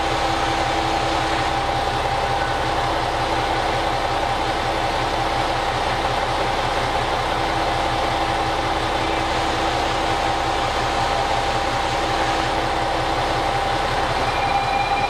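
JR Shikoku 2000 series diesel railcar engines running at idle: a steady low pulsing with a steady hum over it. A thin high tone joins near the end.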